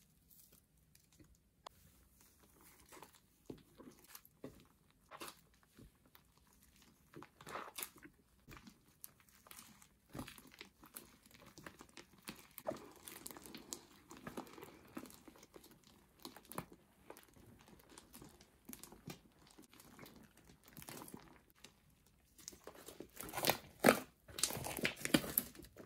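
Slime being stirred, squeezed and stretched by hand, giving irregular wet crackles and crinkly pops. The crackling grows loudest and densest near the end, as a large mass of slime is pulled and folded.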